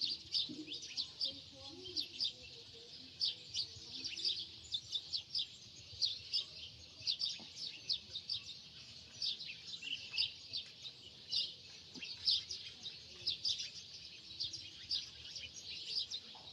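Small birds chirping continuously: a dense chorus of quick, high chirps overlapping one another.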